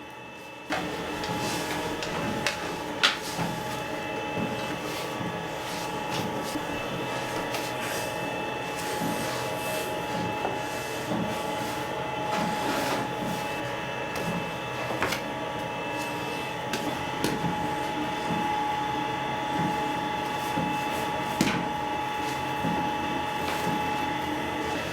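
Electric dough mixer running steadily with a held motor whine and a low rhythmic churning of the dough, with a few sharp clicks or knocks. It starts suddenly just under a second in.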